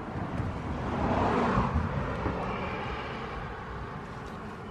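A vehicle passing by: a rushing sound that swells to its loudest about a second and a half in, then slowly fades.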